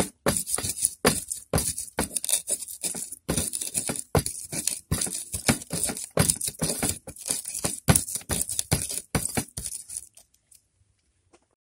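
Stone pestle grinding and pounding shallots, green chilies and garlic in a stone mortar (ulekan and cobek): rapid repeated strokes of stone knocking and scraping on stone, a few a second, stopping near the end.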